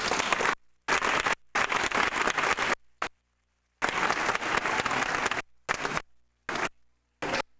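Audience applauding, in several stretches broken by abrupt gaps of dead silence where the recording cuts.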